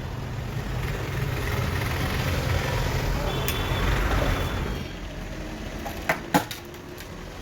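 Road traffic rumble that swells in the middle and then fades, followed by a few sharp clicks near the end.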